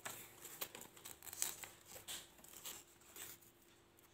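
Paper cutout figures rustling and ticking faintly as they are handled and stood up on a tabletop, in short scattered bursts that thin out after about three seconds.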